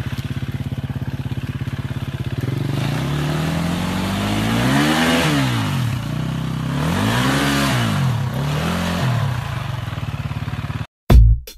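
Dirt bike engine running at a pulsing idle, then revved up and back down twice, with a smaller blip after, as the bike is worked out of deep mud under load. It cuts off abruptly near the end, and electronic music with a beat begins.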